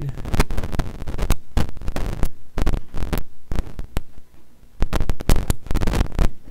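Crackling pops and thumps with a hum over the church sound system, coming irregularly and easing off briefly a little past the middle: a microphone plug or cable connection being worked.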